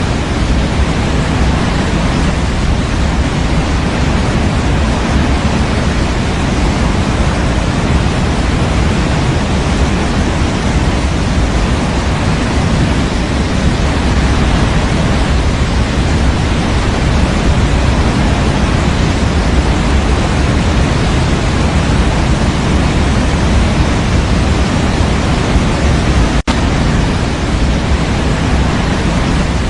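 Steady synthetic sleep noise, a constant rushing hiss weighted toward the low end, played continuously to soothe a baby. It drops out for a split second near the end, like a loop seam, then carries on unchanged.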